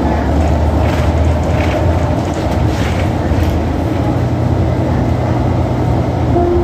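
Cabin noise inside a 2014 New Flyer XDE60 hybrid articulated bus under way: a steady low drone of the drivetrain and road noise, with a few brief rattles in the first half. About four seconds in, the low hum shifts slightly higher.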